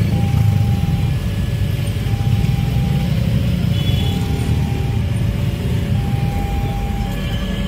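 A level-crossing warning signal sounds a clear repeated tone, about one second on and one second off, over the steady low rumble of queued motorcycles and cars idling at the closed crossing.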